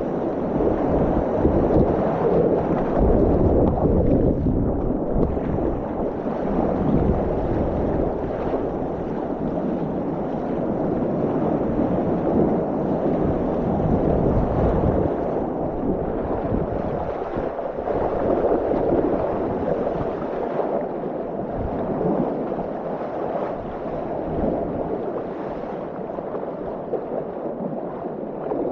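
Water rushing and splashing along the bow and hull of a sea kayak surfing down waves, with wind buffeting the microphone. The low wind rumble is heavier in the first half and eases later.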